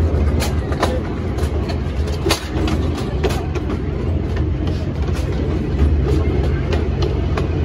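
Open-car ride train running along: a steady low rumble from the moving cars, with scattered clicks and rattles.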